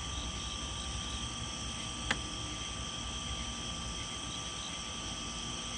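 Steady chorus of night insects trilling, with a low rumble underneath and a single sharp click about two seconds in.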